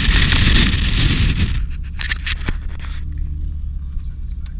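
A car moving through deep snow, heard from a camera held outside the window: loud rushing, scraping noise of wind and snow over a low rumble. About a second and a half in, the rushing stops and only the steadier, muffled low rumble of the moving car remains, heard from inside the cabin.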